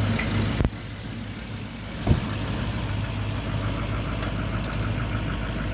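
Chevrolet Silverado 2500 HD pickup's engine idling steadily, with two sharp knocks, one about half a second in and another about two seconds in.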